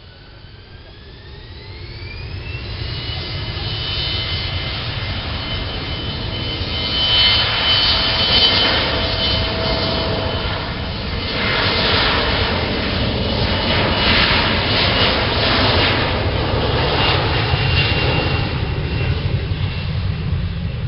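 Embraer regional jet's twin turbofan engines spooling up on the takeoff roll: a rising whine over the first couple of seconds, then a loud steady whine and rumble at takeoff power as the jet accelerates down the runway.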